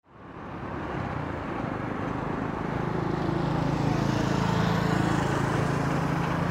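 An engine running steadily with a low hum, fading in over the first second.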